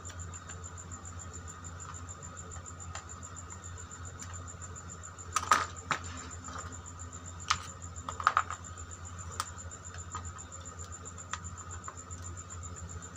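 Short sharp clicks and taps of a screwdriver and wire ends on a plastic switch-and-socket board and its terminal screws, a few at a time, loudest about the middle. Under them run a steady low hum and a high, evenly pulsing chirp.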